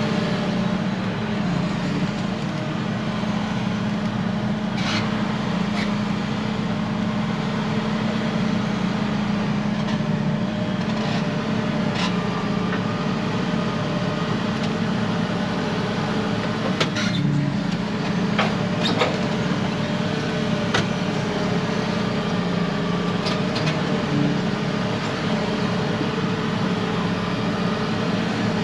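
Tractor engine running at a steady speed under way, with a few sharp rattles and knocks here and there.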